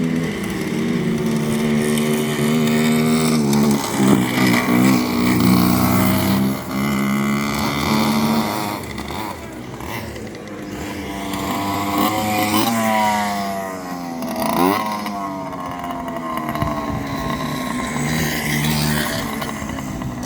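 Go-kart engines running, their pitch rising and falling as the karts speed up and slow down, with a quick rise and sharp drop in pitch about three quarters of the way through.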